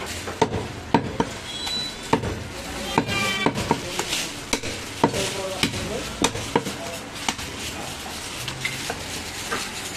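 Cleaver chopping mutton on a wooden stump block: sharp, irregular chops about every half second to a second, over a steady market background.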